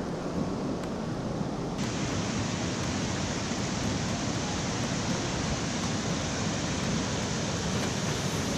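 Rushing white water of a rocky stream cascade, a steady dense hiss of falling water. About two seconds in, the sound turns brighter and hissier as it comes from closer to the tumbling water.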